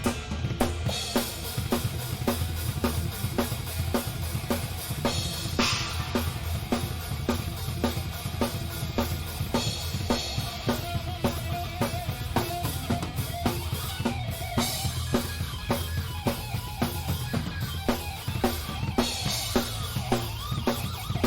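Live rock band playing, heard from close to the drum kit: a steady fast beat of kick drum and snare drives through, with cymbal crashes every few seconds over the rest of the band.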